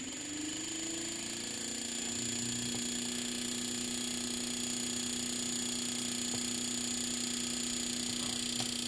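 Steady electrical hum with a hiss from a Panasonic inverter air-conditioner main board and its condenser fan motor, powered up for a test. The pitch rises slightly over the first second or two, then holds steady. The fan motor does not run: the board's fan drive is dying.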